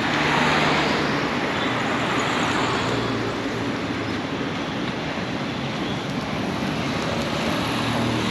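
Busy road traffic: a steady wash of cars and other vehicles driving past, with engine hum and tyre noise, loudest in the first couple of seconds as a vehicle passes close by.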